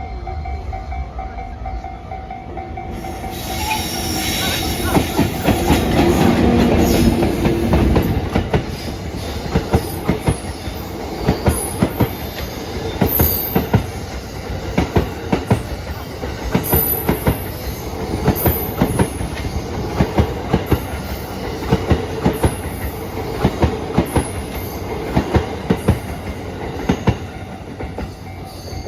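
EF64 1000-series electric locomotive passing over a level crossing, loudest a few seconds in. It then tows an unpowered E235-series train set, whose wheels clatter rhythmically over the rail joints with intermittent high wheel squeal. A level-crossing warning signal sounds steadily at the start and again near the end.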